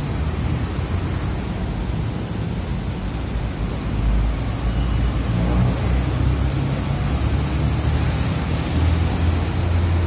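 Road traffic passing: a steady low rumble of vehicle engines and tyres that grows louder about four seconds in and again near the end.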